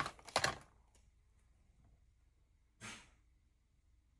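Hands handling a taped paint stick against a corrugated plastic sign, with a few quick taps and rustles in the first half second. After a quiet stretch comes one short, breathy exhale about three seconds in.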